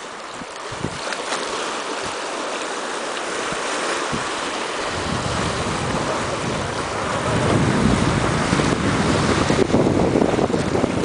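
Shallow seawater washing and small waves breaking against rocks, a steady hiss of surf. About halfway through, a low rumble of wind on the microphone joins in and the sound grows louder.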